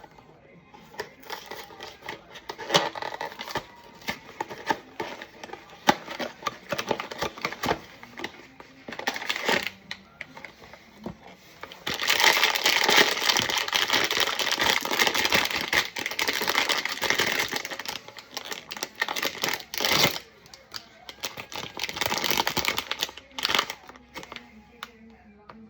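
Blind box packaging being handled and opened: scattered clicks and taps of cardboard and plastic, then from about twelve seconds in some eight seconds of loud, continuous crinkling of a wrapper.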